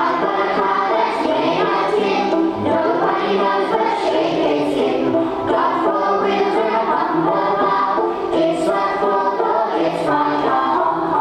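A class of young children singing together over instrumental accompaniment.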